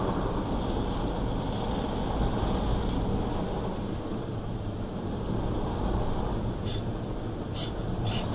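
Automatic car wash heard from inside the car: a steady low rush of water spray and machinery on the body, with a few short sharp hisses near the end.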